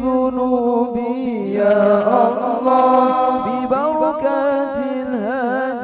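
Voices chanting an Arabic sholawat: a winding, ornamented melody sung over a steady held note, without drums.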